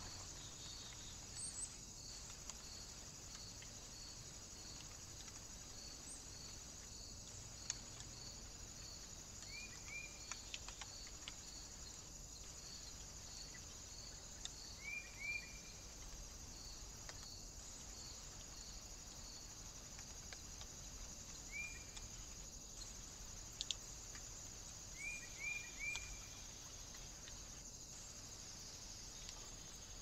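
A steady, high-pitched insect chorus of crickets in woodland, with one short note repeating about once a second through the first two-thirds. Now and then, four or five times, a small bird gives a call of two or three quick rising notes.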